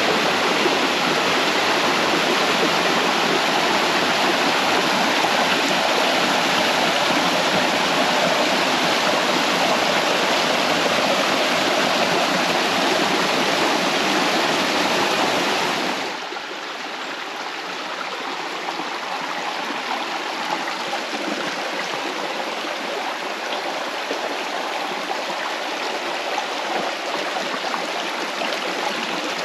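Mountain creek rushing over rocks in a steady rush of water. A little past halfway it cuts suddenly to a quieter, thinner flow.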